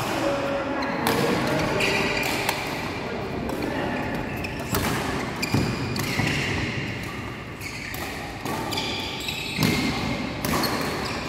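Badminton doubles rally: rackets striking the shuttlecock in sharp cracks roughly once a second, with the players' footwork on the court between hits, echoing in a large hall.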